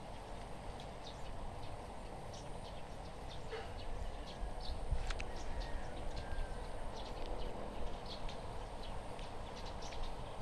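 Outdoor ambience with a steady low rumble and many short, scattered high chirps and ticks, and a brief thin whistle-like tone about halfway through.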